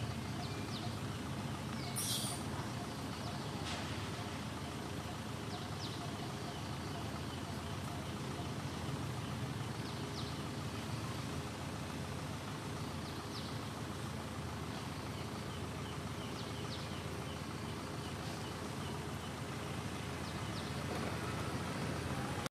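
Steady outdoor background noise with a low rumble, scattered with a few faint, short high chirps and one brief sharp hiss about two seconds in; it cuts off abruptly at the end.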